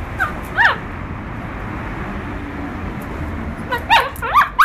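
A dog whining and yipping: two short falling whines near the start, then a quick run of high whines about a second before the end.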